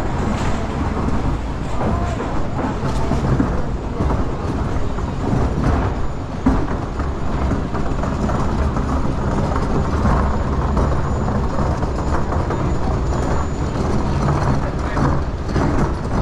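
Steady low rumble of vehicle noise, with no single event standing out.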